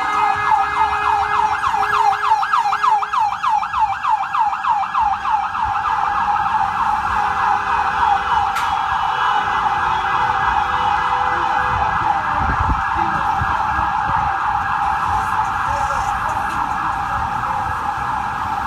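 Ambulance electronic siren on a fast yelp, rising and falling several times a second, quickening into a denser warble about six seconds in. Traffic rumbles underneath, with one sharp click partway through.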